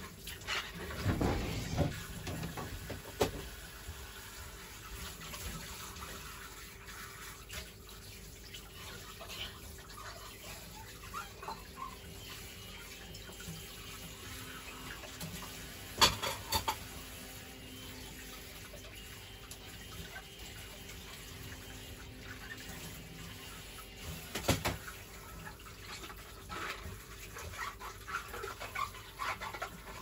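Kitchen tap running into a stainless-steel sink while dishes are washed by hand, with occasional clinks and knocks of dishware against the sink; the loudest knock comes about halfway through, another a few seconds later.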